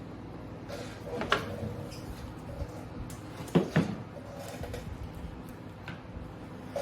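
Metal clutch parts of a Honda CR125R being handled as the inner clutch hub is pulled off the basket, with two sharper clanks about one and a half and three and a half seconds in.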